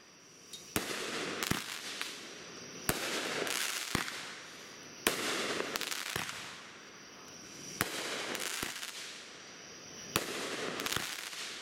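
A 200-gram consumer fireworks repeater cake firing its shots one after another. There are sharp reports about a second apart as the shells launch and burst, and each is followed by the crackling hiss of the bursting stars, which dies down before the next shot.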